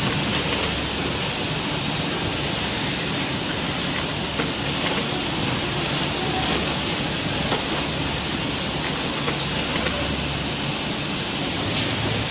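Steady whirring of machines in a small workshop, with a few light clicks as plastic USB charger shells are handled and loaded into a benchtop automatic taping machine.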